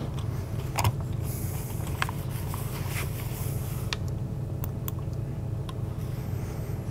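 Steady low room hum, with a handful of light clicks and taps scattered through it as a laptop is worked at a lectern.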